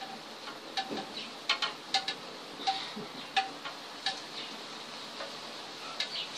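Wood-burning pen tip tapping and scraping on a wooden board: a string of short, light ticks, irregular, one or two a second, over a steady faint hiss.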